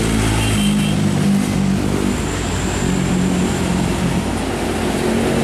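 Diesel truck engines passing on a highway: a steady, loud engine drone whose pitch shifts now and then, over road and traffic noise.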